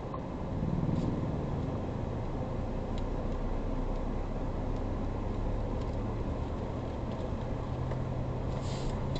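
In-cab sound of a Ford Ranger Raptor pickup driving slowly on a dirt road: the engine runs with a steady low hum under continuous tyre and road rumble.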